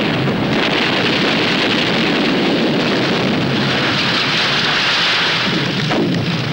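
Artillery barrage landing as final protective fire: a steady, dense rumbling roar of shell bursts, with no single blast standing out.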